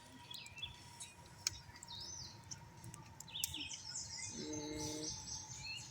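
Small songbirds chirping and twittering, with scattered short high calls and a few light clicks.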